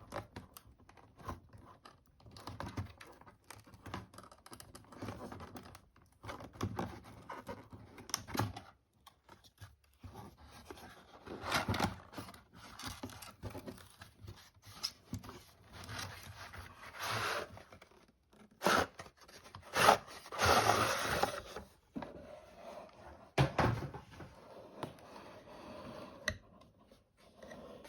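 Doll packaging being opened by hand: irregular bursts of scraping, rustling and tearing of cardboard and plastic, with a sharp click or tap now and then. The loudest stretch comes about two-thirds of the way through.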